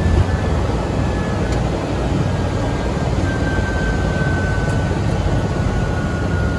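Helicopter turbine engine and rotor running on the ground, heard from inside the cabin: a steady loud rumble with a faint high whine that drifts slightly lower.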